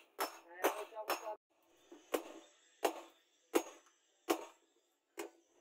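Hammer blows on a red-hot steel blade forged from a truck leaf spring, lying on a round steel anvil post: about nine sharp metal strikes. They come close together at first, with the metal ringing between them, then slow to about one every 0.7 s.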